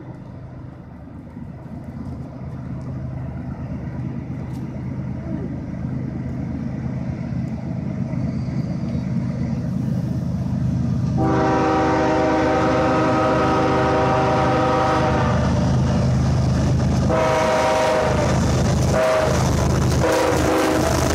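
Approaching CSX freight train led by diesel locomotives, its rumble growing steadily louder. The lead locomotive's multi-note air horn sounds a long blast about eleven seconds in, then again from about seventeen seconds in with a few short breaks, the warning sounded for a grade crossing.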